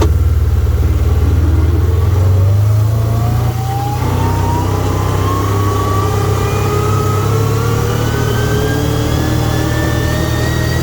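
Can-Am Commander 1000 XT side-by-side running in gear while moving, with a howling, whistling whine that rises steadily in pitch as it picks up speed. The owner hears this noise only when the machine travels in gear under its own weight, not with it lifted off the ground.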